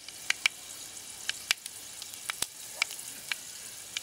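Mustard seeds frying in hot oil in a clay pot: a steady sizzle with scattered sharp pops as the seeds splutter.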